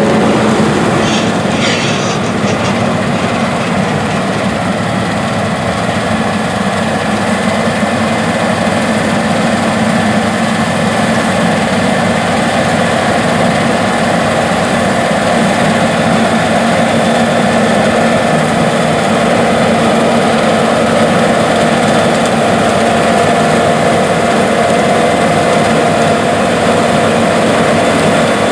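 New Holland CR8090 twin-rotor Class 8 combine (449 hp) running steadily under load while harvesting wheat: a continuous engine and machinery drone with a few steady hum tones.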